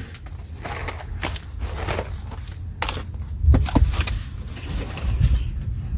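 Food packages and cardboard boxes being handled and set down on a shelf of a wooden cabinet: scattered rustles and light knocks, a cluster of them a little past the middle, over a steady low rumble.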